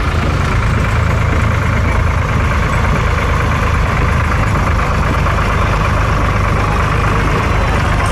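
A heavy vehicle engine idling steadily, a low even drone.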